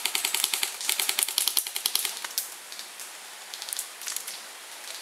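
Airsoft guns firing in rapid full-auto bursts: a dense rattle of sharp clicks for about two and a half seconds, then a few short bursts a second or so later.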